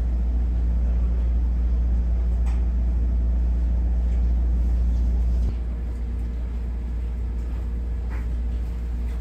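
Steady low rumbling hum inside a standing passenger railway carriage, with a couple of faint knocks. The hum drops abruptly in level about five and a half seconds in.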